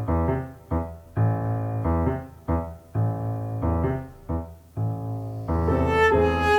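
Background music: a piano-led track of short repeated chords over low bass notes, with a higher melody line coming in near the end.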